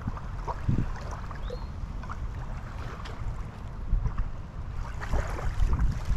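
Wind buffeting the microphone at the seashore: a steady, ragged low rumble that swells a little near the end, with a few light clicks and knocks from handling.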